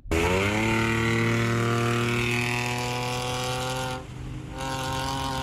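Car engine at high revs under hard acceleration: the note climbs for about half a second, then holds high and steady. It eases off briefly about four seconds in, then picks up again.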